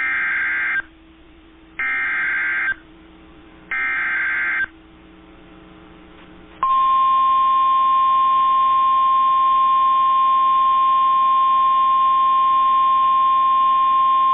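Emergency Alert System SAME header: three short bursts of screeching digital data tones, each about a second long and about a second apart. About six and a half seconds in, the NOAA Weather Radio 1050 Hz warning alarm starts, one loud steady beep that signals a warning-level alert.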